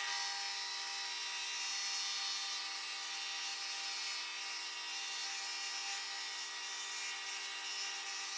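Drill press running steadily while its wide flat-bottomed bit bores a counterbore over an existing hole in a wooden board. A steady motor whine with several held tones, over a hiss of wood being cut.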